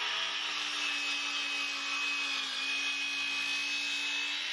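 DeWalt circular saw cutting across a 4x4 post, the motor holding a steady whine under load with a slight sag in pitch about halfway. This is one partial-depth pass: the blade is too shallow to get through a 4x4 at once, so the post is cut from several sides.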